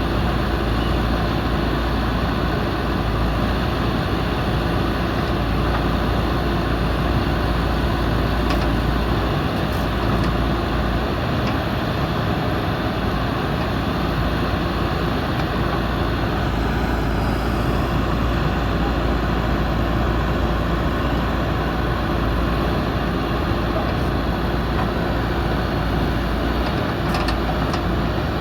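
JCB backhoe loader's diesel engine running steadily while it works, a constant dense machine noise with no pauses.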